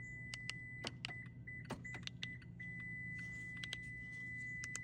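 Key fobs being handled: scattered light clicks and knocks, over a thin steady high-pitched tone and a low steady hum.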